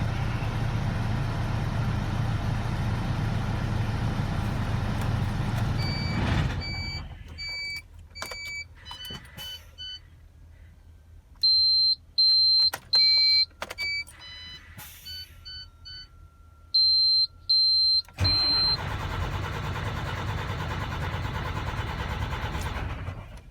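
MAN TGA 26.480 truck's six-cylinder diesel engine running, then shut off about six seconds in. In the quiet, the cab's warning beeper sounds in short series of high beeps. A little before the end the engine starts again abruptly and runs steadily.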